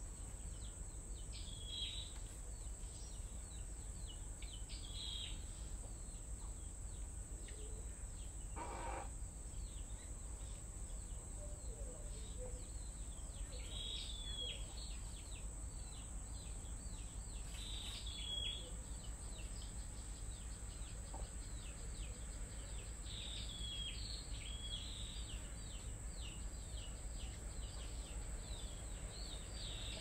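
Birds chirping in short, repeated phrases every few seconds over a steady high insect drone, with one brief harsher, lower call about nine seconds in.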